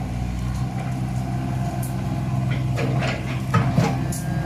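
Komatsu excavator's diesel engine running steadily as it levels the ground, with a few sharp knocks about three to four seconds in.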